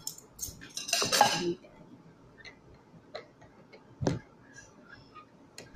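Spoon and rice being handled against a plate and a glass food container: a short scrape about a second in, then scattered light clicks and taps.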